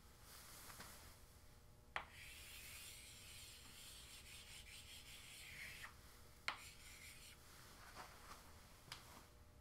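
Chalk drawing on a blackboard: faint scraping strokes, with a few sharp taps of the chalk against the board, the clearest about two seconds and six and a half seconds in.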